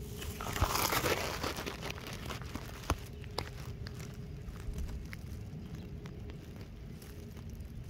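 Dry grass and straw stalks rustling and crackling as they brush against the phone, loudest about half a second to a second and a half in, followed by a few faint ticks over a low steady outdoor background.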